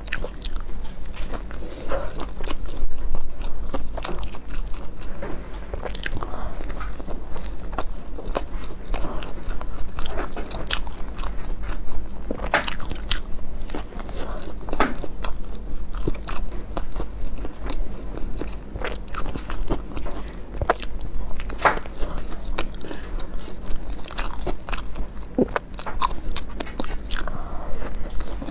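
Close-miked eating of a soft steamed bun with kelp filling: irregular bites, wet chewing and lip smacks. A steady low hum runs underneath.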